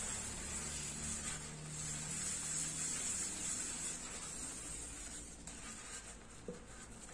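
Soapy sponge scrubbing an aluminium pot coated in a homemade aluminium-polishing paste: a soft, wet rubbing swish that grows fainter in the last couple of seconds.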